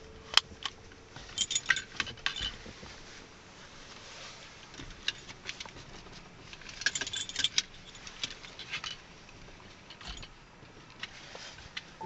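Metal hardware of a dog seatbelt harness clinking and jingling as it is handled, with a sharp click just after the start as the harness connector latches into the car's seat-belt buckle. Two bursts of jingling follow, about two and seven seconds in.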